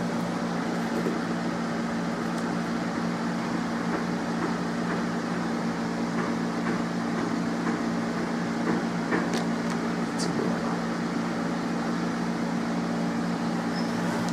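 A steady low mechanical hum, like a fan or air-conditioning unit running, with a few light clicks and knocks about nine to ten seconds in as things on the workbench are handled.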